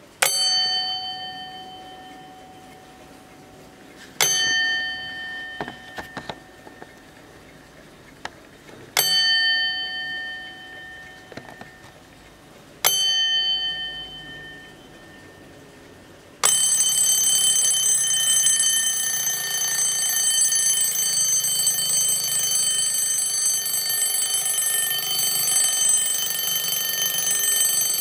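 Wehrle Sanssouci Duplex Softic mechanical alarm clock's bell struck singly four times, about four seconds apart, each stroke ringing and fading away. About two-thirds of the way in, the bell switches to loud continuous alarm ringing.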